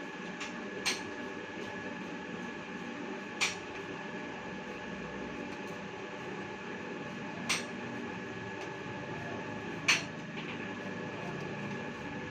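Electric pipe threading machine running with a steady hum and a constant high whine, with four sharp metallic clinks spaced a few seconds apart.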